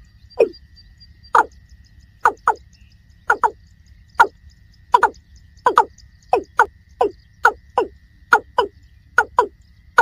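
Water cock (Gallicrex cinerea) calling: a run of short, loud 'kok' notes, each falling in pitch, about one to two a second, some single and some in quick pairs.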